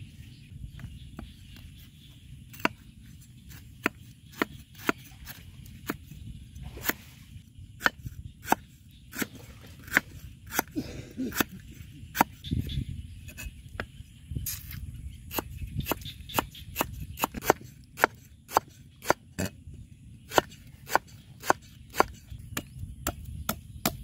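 Cleaver slicing a lemongrass stalk into thin rings on a wooden chopping block: sharp knocks of the blade on the wood. They are irregular at first and quicken to about two a second in the second half.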